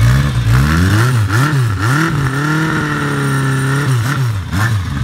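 1982 Kawasaki Z750's air-cooled inline-four revved through a Marshall 4-into-1 exhaust. There are several quick throttle blips, then a higher rev held for about a second and a half, then it drops back to idle near the end.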